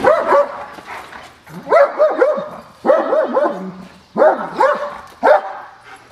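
German Shepherd barking in short volleys of one to three barks, a new volley a little over a second after the last.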